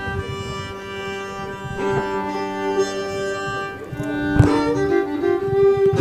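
Fiddle bowing long held notes, often two strings at once, over a few acoustic guitar strums.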